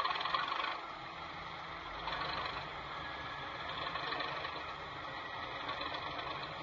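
Model Class 59/1 diesel locomotive running slowly under power, its onboard sound playing a steady diesel engine note. A few light clicks come in the first second.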